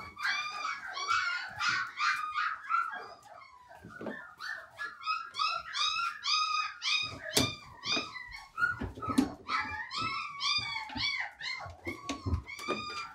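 A litter of four-week-old German Shorthaired Pointer puppies whining and yelping, many short high-pitched cries overlapping, with a brief lull about three seconds in and a single sharp knock past the middle. The puppies are hungry and waiting to be fed.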